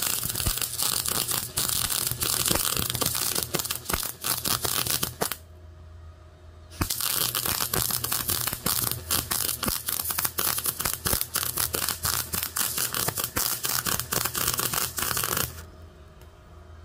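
MIG welder arc crackling steadily as it butt-welds 1/8-inch steel to 3/16-inch steel. It runs in two stretches: about five seconds, a pause of about a second and a half, then about nine seconds more.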